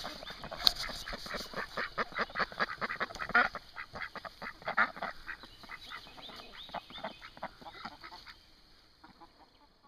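Small flock of white domestic ducks quacking in a rapid run of short calls, thinning out and fading near the end.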